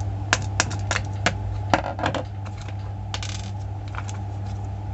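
Electric kettle parts being handled: a string of sharp light clinks and clicks, about seven in the first two seconds and a quick cluster a little past three seconds, over a steady low hum.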